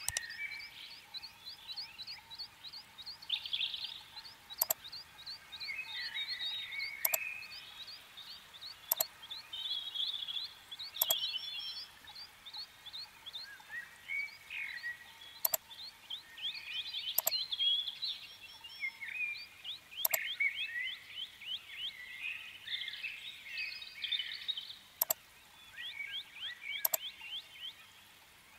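Nature ambience of high, rapid chirps and short falling trills from small animals, continuing throughout, with a sharp click every couple of seconds.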